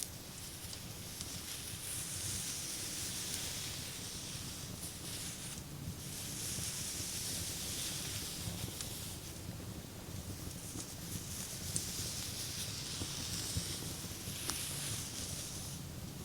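Hands stroking and rubbing across a person's back as an ASMR massage: a soft rustling hiss that swells and fades in several long sweeps a few seconds each, with a few faint ticks.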